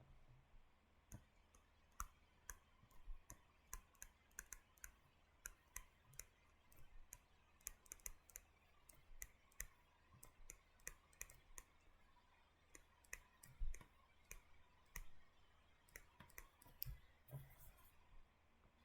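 Faint, irregular clicking of a stylus tip tapping on a tablet screen while notes are handwritten, a few clicks a second.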